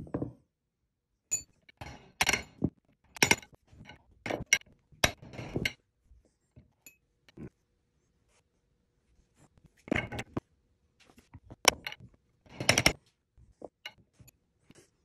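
Metal clinks and knocks of a steel bearing-driver sleeve and the ball screw being handled while new angular contact bearings are fitted onto a CNC mill's ball screw, with a quiet spell of a few seconds midway.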